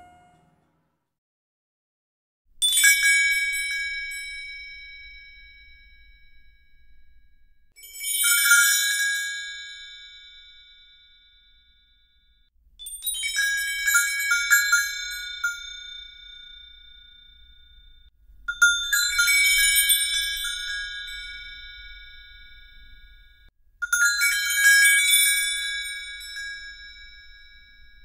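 A high-pitched bell rung five times, about five seconds apart, each ring fading out slowly; several of the rings have a few quick jangling strikes at the start.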